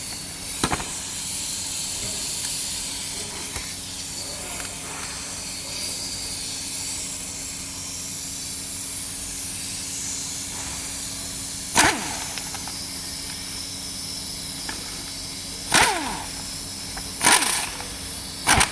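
Short bursts from a power tool used to undo fasteners on an engine during teardown: one about a second in and four more in the last seven seconds, some trailing off in a falling pitch. A steady hiss and low hum run underneath.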